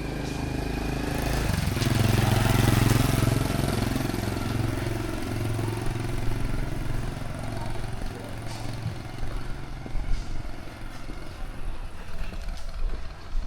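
A small motorbike engine passing close by, growing louder about two seconds in and then fading away.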